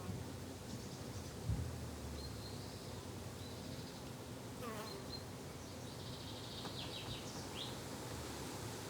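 Flying insects buzzing steadily in a summer garden, with a few short high chirps. A low thump about a second and a half in is the loudest moment.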